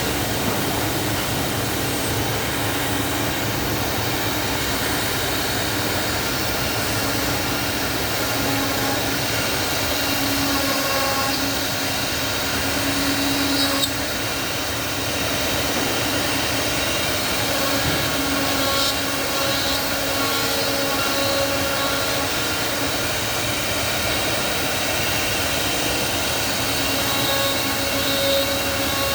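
Two-table CNC mortising machine running steadily, its motor noise continuous, with a brief click about fourteen seconds in.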